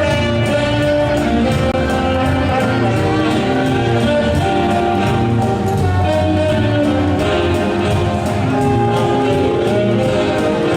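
Latin dance music playing loudly with a steady beat and sustained melodic notes.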